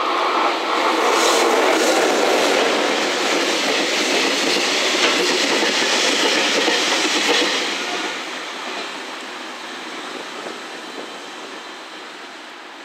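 Container freight train hauled by an EF210 electric locomotive passing at speed, its wheels running over the rails with a rhythmic clatter. Loud for about the first seven seconds, then fading steadily as it moves away.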